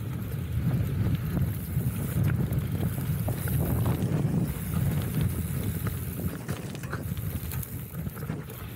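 Wind rumbling on the microphone of a rider-mounted camera, with mountain-bike tyres rolling fast over a dry dirt track and scattered small knocks and rattles from the bike.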